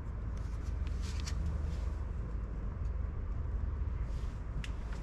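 Outdoor background noise: a steady low rumble, with a few faint, short high clicks.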